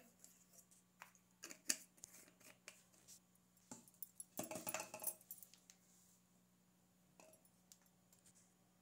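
Faint, scattered clicks and light handling sounds of hands moving decorating items and plastic packaging on a counter. A brief denser patch of crinkling and clicking comes about four and a half seconds in, over a low steady hum.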